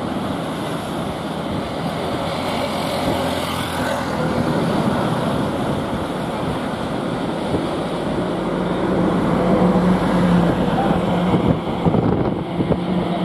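Strong wind buffeting the microphone over breaking surf, with the steady drone of the ALCO diesel locomotive's engine growing louder about two-thirds of the way in.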